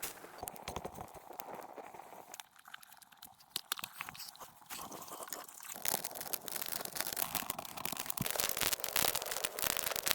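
Crunching and crackling: a run of small sharp clicks over a hiss, growing thicker and louder over the last few seconds.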